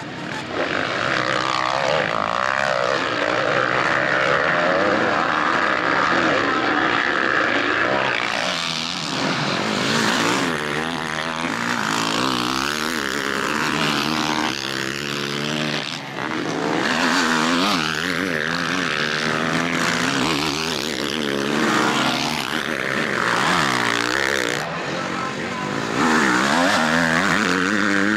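Motocross motorcycle engines racing, their pitch rising and falling again and again as the riders open and close the throttle and shift, with more than one bike often heard at once.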